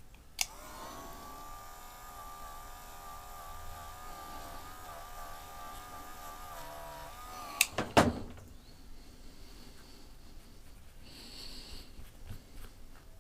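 A small electric rotary tool clicks on, spins up to a steady whine and runs for about seven seconds while buffing polish into a plastic diecast windshield, then shuts off with a couple of sharp clicks.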